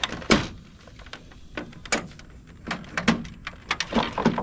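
Irregular clicks and clunks of plastic and metal parts being handled and pried loose while a typewriter is taken apart by hand, the loudest knocks near the start and toward the end.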